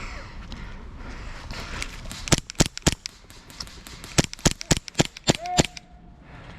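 Airsoft guns firing, about ten sharp shots in quick, uneven succession, starting about two seconds in.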